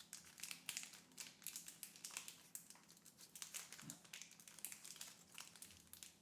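Faint crinkling and rustling of a Pokémon booster pack and its cards being handled, many quick crackles close together.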